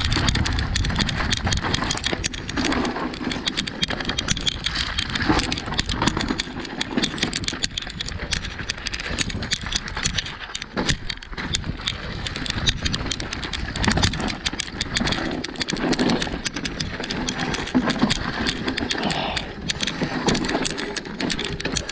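Mountain bike rattling over a rough, rocky, leaf-covered trail on a descent: tyres crunching over stones and dry leaves, with a constant clatter of knocks and rattles from the bike.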